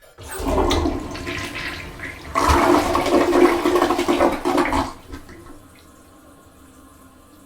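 Toilet flushing in a small bathroom: a rush of water that surges twice and dies down about five seconds in to a quieter steady hiss of water.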